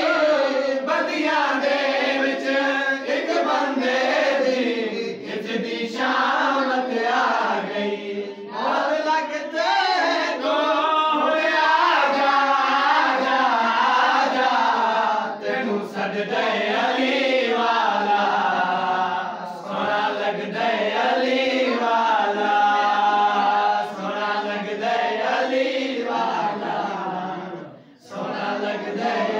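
Men's voices chanting a qasida together, unaccompanied, in a continuous melodic recitation with a brief pause near the end.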